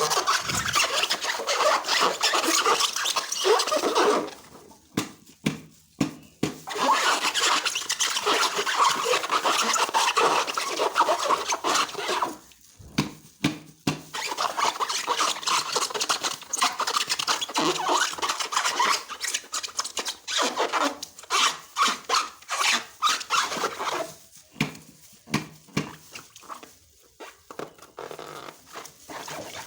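Slime being stirred and squished by hand: long stretches of sticky squelching and rubbing, broken by many small clicks and pops, which crowd together in the second half.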